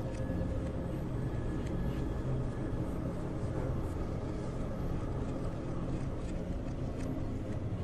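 Steady low rumbling drone with a few faint scattered clicks, an ambient background bed under the end screen.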